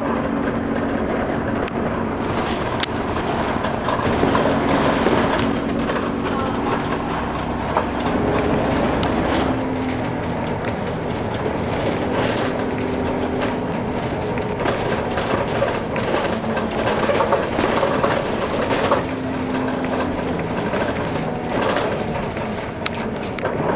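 Bus heard from inside while driving: the engine hums steadily and shifts pitch a few times as it changes speed, over a constant rumble of road noise, with scattered rattles and knocks from the bodywork.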